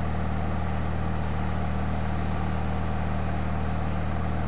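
John Deere lawn tractor engine running steadily with the throttle lever set to fast, an even low drone with no change in speed.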